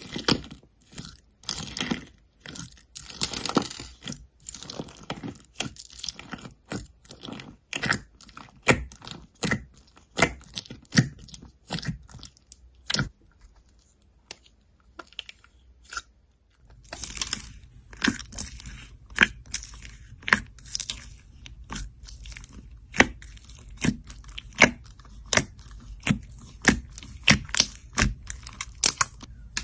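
Fingers squishing, poking and stretching slime in plastic tubs, making a run of wet crackles, clicks and small pops as jelly-cube and cereal mix-ins are pressed. The sound goes quiet for a few seconds about halfway through, then returns as a steadier run of sharp pops and crackles.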